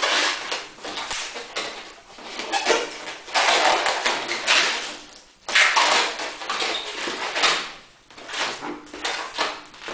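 Red latex modelling balloon squeaking and rubbing against itself and the hands as it is twisted and folded, in a series of long squeaky rubs with short pauses between them.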